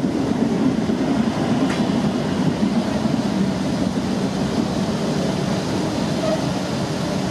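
Steady rumble of trains running on the rails as an orange UT-440 electric multiple unit passes close alongside on the adjacent track, with one faint click about two seconds in.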